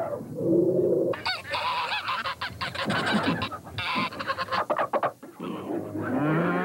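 Farmyard sound effect of geese honking in a rapid, overlapping flurry of calls, with a low rising call just before the end.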